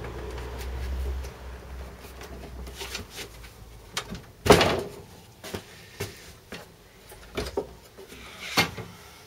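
Knocks and clunks of a sliding mitre saw being adjusted by hand, with the loudest knock about four and a half seconds in and several smaller ones after it.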